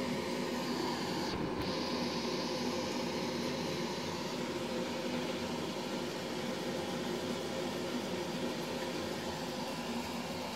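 Steady hum of a small motor with an even hiss over it; the high part of the hiss briefly thins about a second and a half in.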